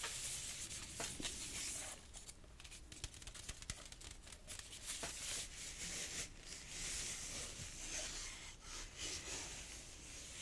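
Fingers scratching and rubbing the woven wicker of a small planter basket held close to the microphone: a continuous run of crisp, crackly scratches and small clicks.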